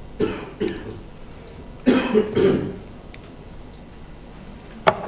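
A person coughing: two short coughs, then a louder cough about two seconds in. A sharp click follows near the end.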